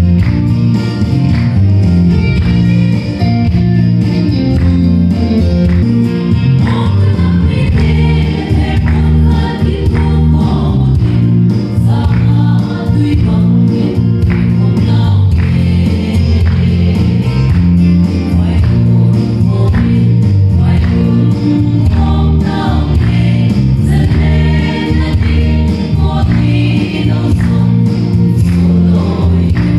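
Gospel-style music: a group of voices singing together over a band with a heavy bass line and a steady beat.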